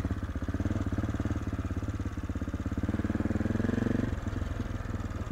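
AJP PR7's single-cylinder engine running at low road speed, its firing pulses coming evenly; the revs build a little and then drop off suddenly about four seconds in as the throttle is closed.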